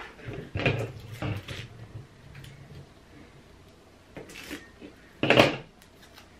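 Crafting sounds on a tabletop: a few knocks and handling noises, then a snip of scissors cutting paper and a sharp clack as the metal scissors are put down on the table, the loudest sound, about five seconds in.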